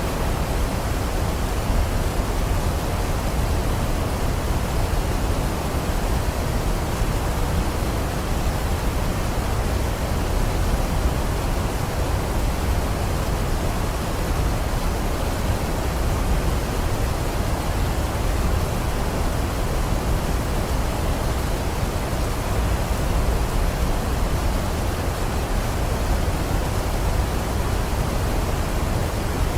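Waterfall: a steady, unbroken rush of falling water, heaviest in the low end.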